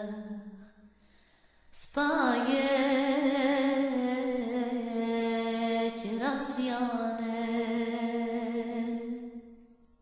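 A solo voice singing a slow, prayer-like melody in Aramaic, holding long notes with vibrato. One phrase begins about two seconds in and a second about six seconds in, and the voice fades out near the end.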